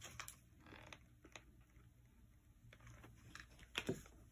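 Faint, scattered clicks and taps from handling a hot glue gun and fabric, with one sharper click a little before the end.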